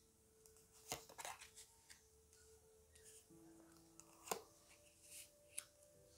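Tarot cards being dealt onto a cloth-covered table: a few soft clicks and taps as cards are flicked over and set down, about a second in, again a little after, and twice more near the end. Faint sustained background tones sit underneath.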